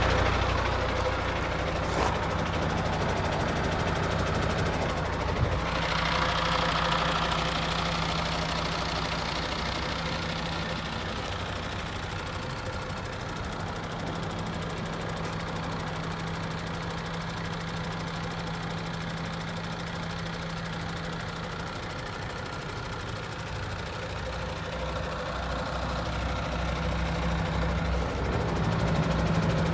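MAN TGX 26.460 tractor unit's 12.4-litre straight-six diesel idling steadily, quieter for a stretch in the middle and louder again near the end.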